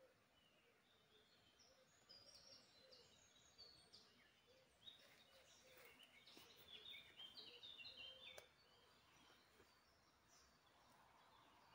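Faint forest birdsong: small birds singing short stepped whistled phrases, with a single sharp click about eight seconds in. A soft hiss builds near the end.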